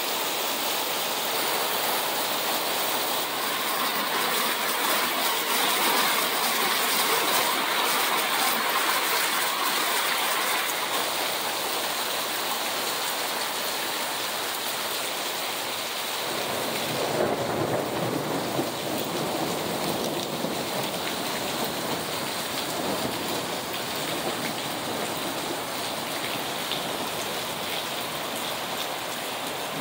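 Heavy rain pouring steadily in a thunderstorm, with a low rumble of thunder rolling in about halfway through.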